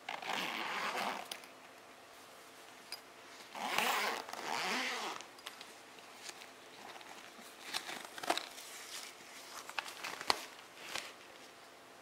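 Zipper on a vinyl carry bag being pulled open in two long strokes of about a second each, followed by a few light clicks and knocks as the bag is handled and its lid lifted.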